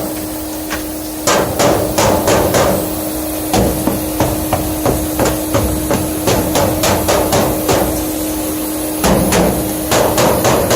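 Repeated knocking on sheet-metal ductwork at the furnace, tapped to shake loose heavy debris during duct cleaning. The knocks come in clusters of several with short pauses between, over a steady hum.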